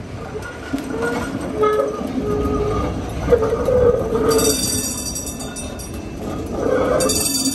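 Vintage PCC streetcar passing on its rails, with steady whining tones from its running gear, then high-pitched metal wheel squeal on the tracks about four seconds in and again near the end.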